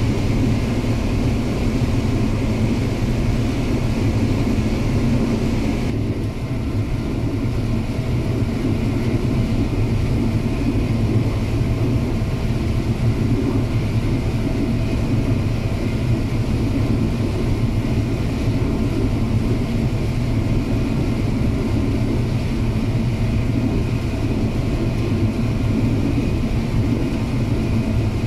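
John Deere W650 combine harvester running steadily while harvesting corn, heard from inside the cab: a dense, even engine and threshing drone with a deep rumble and a higher hiss, the hiss easing slightly about six seconds in.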